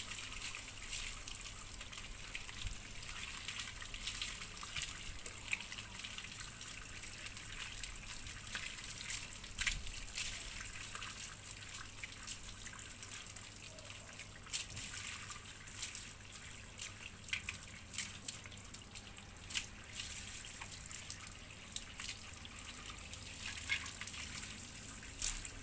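Water from a garden hose running and splashing over a wet dog's coat and into a concrete tub, a steady trickle with drips, and a few sharp taps now and then.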